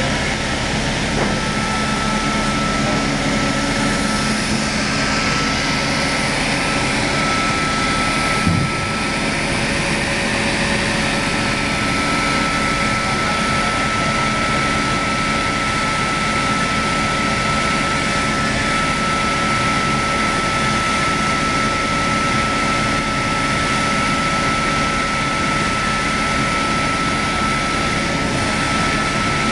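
Arterki MJ-250-1300 automatic reciprocating single-side sawing machine running: a steady, loud mechanical noise with a constant high whine, and a single short knock about eight and a half seconds in.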